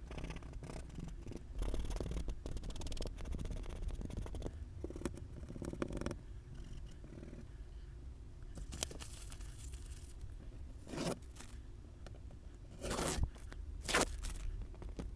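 Scratchy scraping and rustling of hands on tracing paper and an oil pastel stroking across a black-painted chalk-art board, in irregular short strokes with a few louder scratches near the end.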